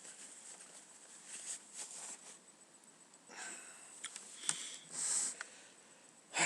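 A person sniffing and breathing through the nose in several short hissy bursts, the strongest about five seconds in, with a few small clicks near the middle.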